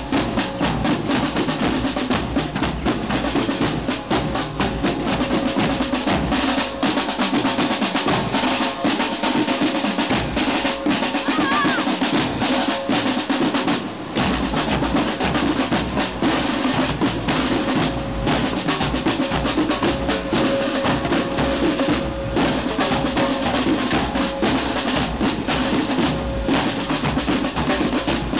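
Marching band drumline of snare drums, bass drums and clash cymbals playing a steady, dense marching beat. The deepest drum beats thin out for a few seconds in the middle, then return.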